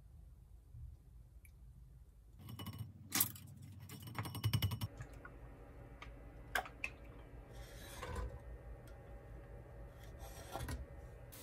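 Kitchen utensils being handled: light clicks and clinks, with a dense run of rapid clicking a few seconds in, then scattered clicks and two short scraping swishes over a faint steady hum.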